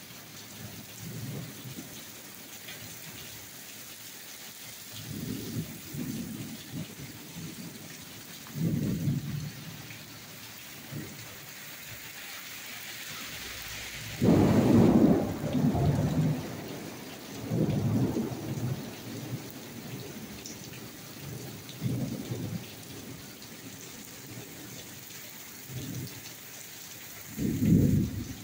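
Heavy rain hissing steadily on pavement and a parked van, with repeated low rumbles of thunder every few seconds. The loudest and longest rumble comes about halfway through.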